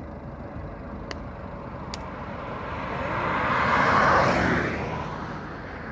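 A vehicle passing close by: a rushing hiss swells to its loudest about four seconds in and then fades. Two faint clicks come in the first two seconds.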